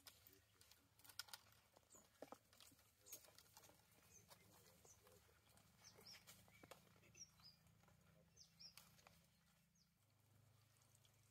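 Near silence: faint outdoor ambience with scattered small clicks and a few brief, faint high chirps.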